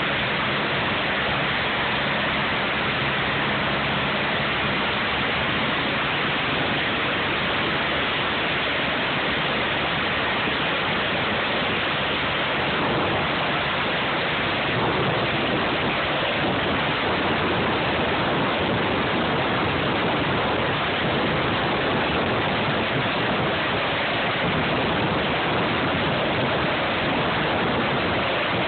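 Medical helicopter's turbine engines and main rotor running on the helipad: a steady rushing noise that grows a little louder from about halfway, as the helicopter lifts off near the end.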